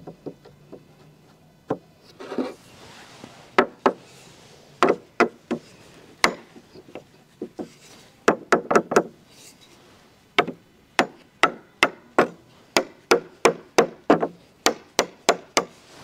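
Hammer knocking on the corner joint of a wooden panel frame. The blows are sharp and wooden: scattered at first, then a steady run of about three a second from roughly ten seconds in.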